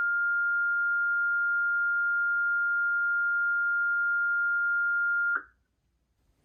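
One long, steady, high-pitched tone sent over the dispatch radio, the activation tone that sets off the outdoor warning sirens for their test. It holds one pitch and cuts off suddenly about a second before the end.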